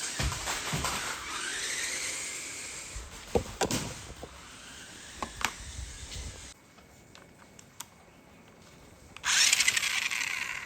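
A toy remote-control stunt car's small electric motor whirring, its pitch rising and falling, with a few clicks and knocks. It goes quiet about six and a half seconds in, then whirs loudly again for about a second near the end.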